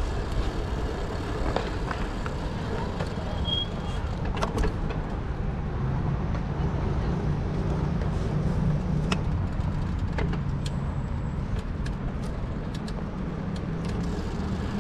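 City road traffic: cars running past with a steady low rumble, and scattered light clicks and rattles.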